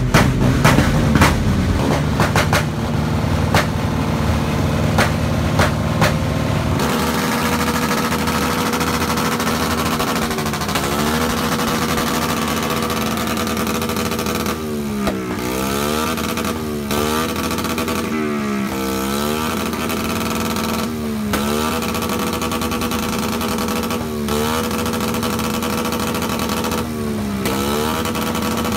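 Motorcycle engine running through an aftermarket KOU racing exhaust, with sharp irregular pops for the first several seconds. After about seven seconds comes a steady engine note whose pitch dips sharply and swings back up again and again.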